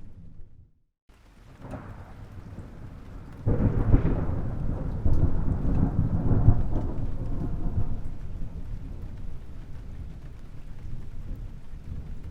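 Thunder rumbling low. After a brief drop-out about a second in it builds again, then a sudden loud clap about three and a half seconds in rolls on for several seconds before easing back to a lower rumble.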